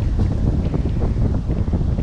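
Wind buffeting a GoPro action camera's microphone: a loud, low, gusty rumble that flutters irregularly.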